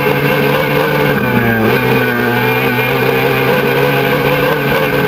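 Formula racing boat's outboard engine running at high revs with a steady, high pitch. It dips briefly about a second and a half in and picks up again, over the rush of water spray.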